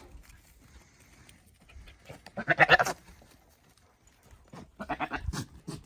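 Buck goat in rut courting a doe: one pitched bleat about two and a half seconds in, then a quick run of short stuttering calls near the end.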